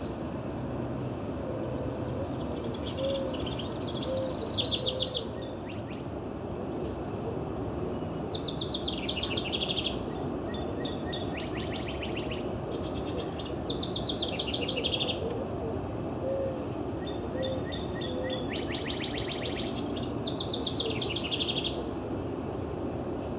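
House wren singing: four bubbly songs of very rapid, tumbling notes, each about two seconds long and repeated roughly every five seconds.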